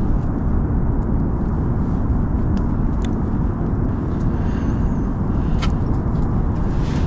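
Steady low rumbling of wind buffeting the microphone, with a few faint clicks.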